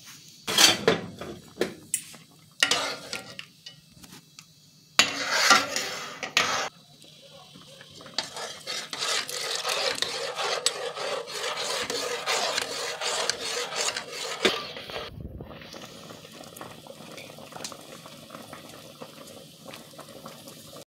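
Rinsing bulgur in a metal pot: sharp knocks and clatter of metal against the pot in the first few seconds, then a steady rush of the rinse water being poured out through a mesh strainer for several seconds. After an abrupt cut, a quieter steady hiss of the pot on the boil.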